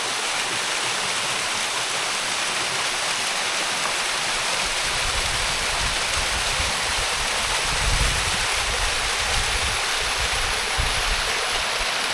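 Waterfall rushing steadily, with some low rumbling from about five to eleven seconds in.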